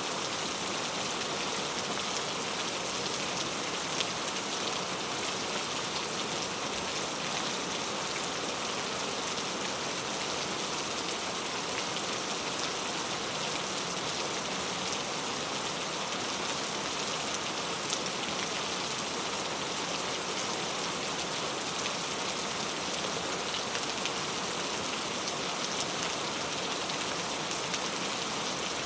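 Steady rain falling, an even dense patter with a few sharper drop ticks.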